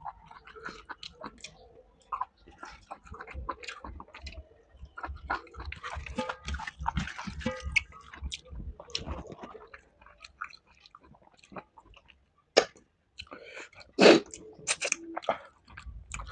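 A person chewing a meal of chicken fry and rice close to the microphone: irregular wet mouth clicks and smacks, with a stretch of steady rhythmic chewing in the middle. A few louder sharp cracks come near the end, the loudest about fourteen seconds in.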